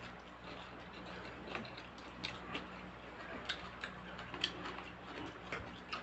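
Faint, irregular light clicks and ticks, a few a second, over a low steady hum.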